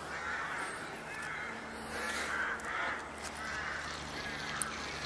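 A crow cawing in a long series of short, repeated calls, over a faint steady low hum.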